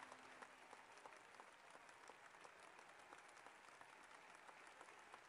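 Faint, steady applause from a large crowd: many hands clapping at once.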